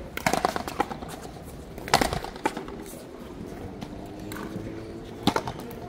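Sharp cracks of a paleta ball struck by paddles and bouncing off the frontón wall in a rally. There are several quick hits in the first second, the loudest crack about two seconds in and another near the end.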